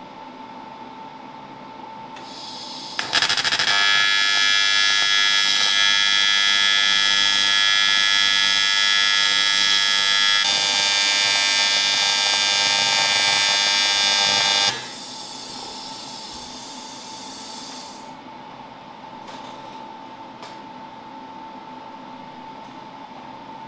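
TIG welding arc on aluminium, a loud, steady buzz starting about three seconds in after a brief hiss and cutting off suddenly after about twelve seconds. A softer hiss carries on for a few seconds after the arc stops.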